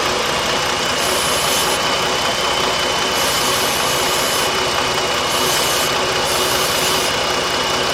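Jeep Grand Cherokee 3.7 V6 idling steadily while it is being checked for a cylinder-3 misfire and a suspected intake air leak. A thin, steady high whine rides over the engine, which the mechanic wonders may just be one of the pulleys turning. Several short hisses come and go.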